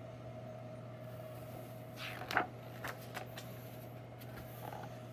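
Pages of a hardcover picture book being handled and turned: a few faint paper rustles and a soft slide around the middle, over a steady low hum.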